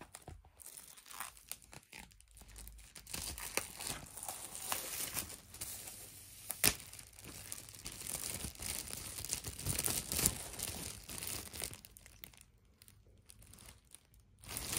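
Clear plastic shrink-wrap being torn off an LP record sleeve and crumpled in the hands, crackling unevenly, with one sharp snap about halfway through.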